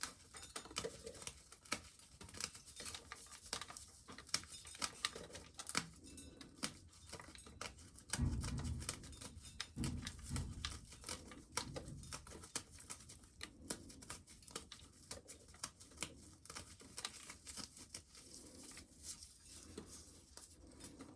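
Dried ears of corn being shelled by hand: faint, irregular clicking and crackling as kernels snap off the cob and patter down. There are a couple of low thuds about eight and ten seconds in.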